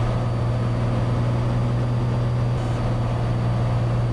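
Cessna 182's six-cylinder piston engine and propeller droning steadily in level flight, one even low hum that does not change.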